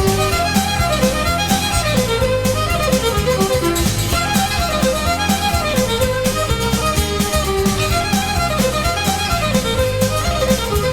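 Instrumental break in a song: a fiddle plays a melody over a bass line and a steady drum beat.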